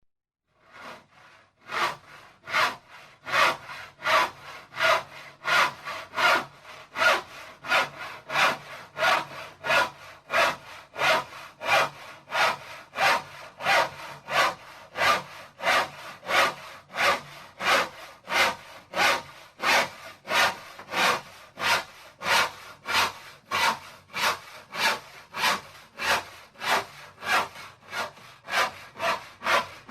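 Hand saw cutting wood with long, steady back-and-forth strokes, about three strokes every two seconds. It starts with a few light strokes about a second in.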